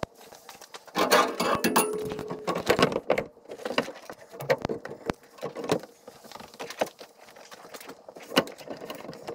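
Gear being handled on a plastic kayak: irregular knocks, clatters and jingling, busiest about one to three seconds in, with a sharp knock near the end.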